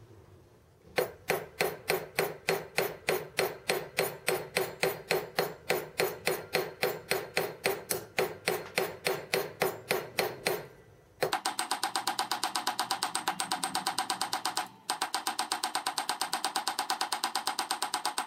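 Hand file worked over a steel threaded bar in quick, even strokes, about four or five a second. After about ten seconds the strokes turn faster and brighter, breaking off briefly once.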